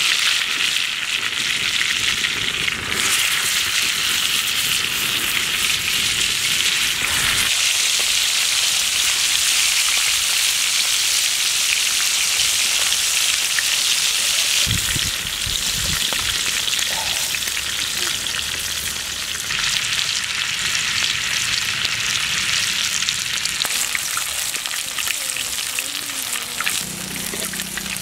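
Chicken drumsticks sizzling as they shallow-fry in butter and oil in a wide metal pan: a steady, high hiss with fine spitting.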